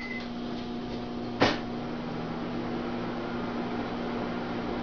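Microwave oven running with a steady hum. A short beep sounds right at the start, and a single sharp knock comes about a second and a half in.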